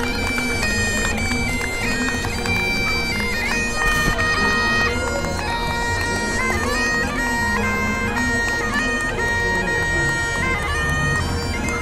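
Bagpipes playing a marching tune, the melody stepping between held notes over the steady drone.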